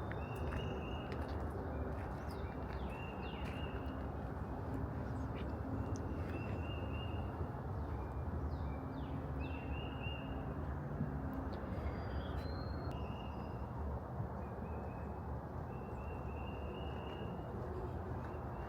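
Outdoor woodland ambience: birds calling repeatedly, short evenly pitched calls every second or two with a few quick falling chirps. A steady low background noise and scattered faint clicks run underneath.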